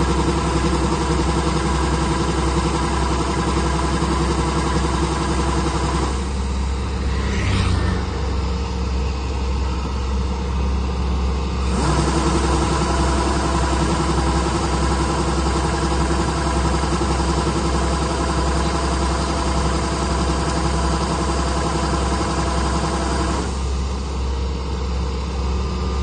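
Engine of harvesting machinery running steadily, its tone shifting abruptly about 6, 12 and 23 seconds in, with a brief rising whine about 7 seconds in.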